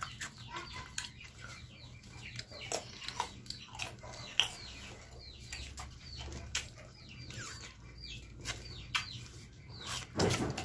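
Close-up crunching and chewing of firm, unripe green mango dipped in shrimp paste, a run of sharp crunches, with chickens clucking in the background.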